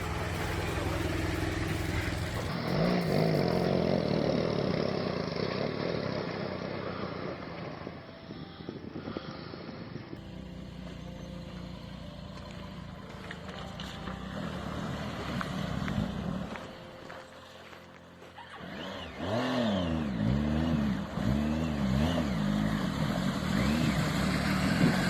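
Off-road vehicle engine running, its pitch rising and falling several times in quick succession near the end as it is revved.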